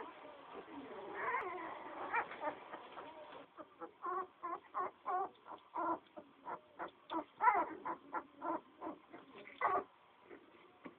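A litter of eleven-day-old puppies squeaking and whimpering: many short pitched calls overlapping at first, then separate calls a few times a second from about three and a half seconds in.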